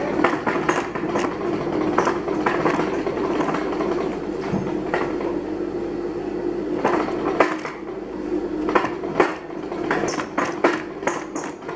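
Old black sewing machine stitching without thread: the needle mechanism clicks and rattles in runs that stop and start as the material is guided along a curved line, over a steady background hum.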